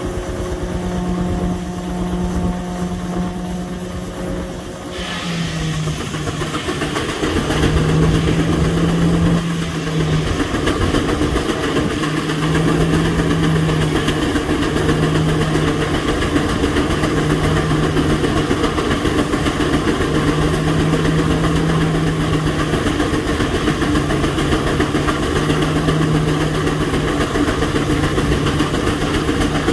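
Belt-driven Waterous circular sawmill powered by a George White steam traction engine. The saw spins free with a steady hum, then about five seconds in it bites into an oak log and cuts steadily, with the engine working under the load.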